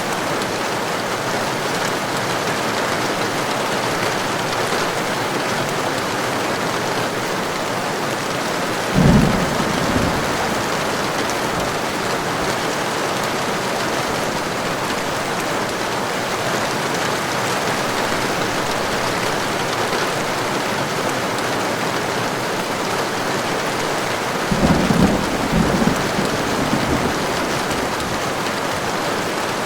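Steady heavy rain pouring, with thunder rumbling twice: a short, deep clap about a third of the way in and a longer, rolling rumble in several pulses later on.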